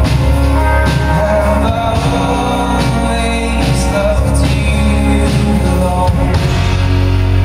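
A live rock band playing a song with a singer, loud amplified music with drum and cymbal hits over sustained chords and a heavy bass, recorded from within the audience.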